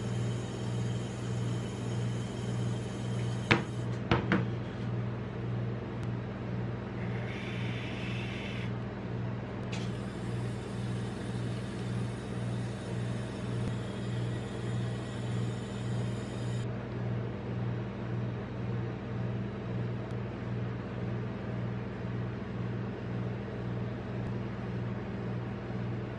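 Steady low hum of a rolled-ice-cream machine's cold plate refrigeration unit, its level pulsing gently. A few seconds in come a few sharp metal taps, typical of a steel scraper knocking on the metal plate.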